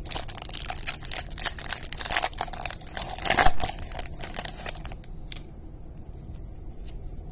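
Foil wrapper of a baseball card pack being torn open and crinkled in the hands for about five seconds, loudest about three and a half seconds in, then only light rustles.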